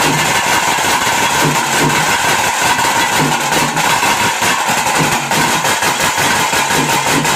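Tase drums beaten in a fast, steady rhythm for the tiger dance, loud and continuous.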